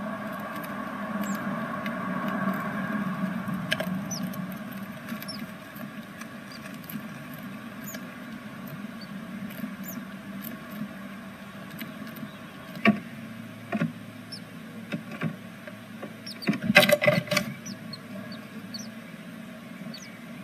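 Sounds inside a great tit nest box: scattered faint, high-pitched peeps over a steady low hum, with sharp knocks and scraping of a bird shifting in the nest, loudest about 13 and 17 seconds in.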